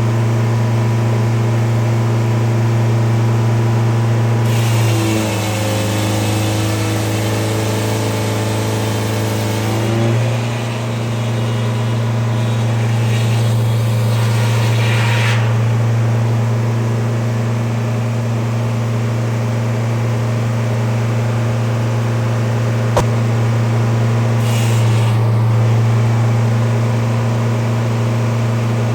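An engine running steadily with a strong low drone. About five seconds in, its pitch shifts for several seconds, and a single sharp click comes near the end.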